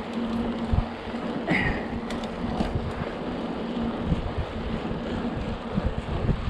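Wind buffeting the microphone of a camera carried on a moving bicycle, heard as an uneven rumble with gusty thumps over rolling noise and a steady low hum. A brief high squeak comes about a second and a half in.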